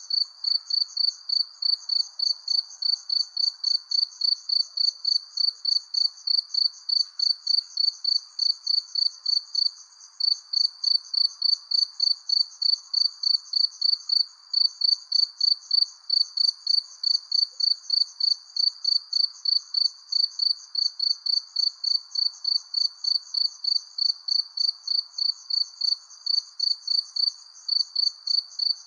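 A cricket chirping at night in a steady, even rhythm of high-pitched chirps, with brief pauses about ten and fourteen seconds in, over a faint steady background hiss.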